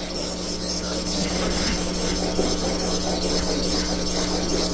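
Steel blade held in a honing jig, rubbed back and forth over a wet water stone: a steady, gritty scraping.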